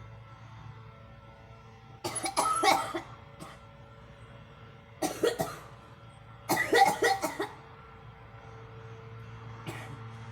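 A girl coughing in three fits, at about two, five and six and a half seconds in, each a quick run of several coughs, with one faint cough near the end.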